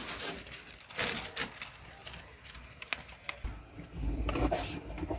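Scattered rustling and light clicks, with a low rumble starting about three and a half seconds in.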